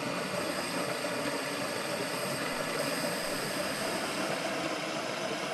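Steady rushing hiss of a water aspirator running, pulling the vacuum on a rotary evaporator.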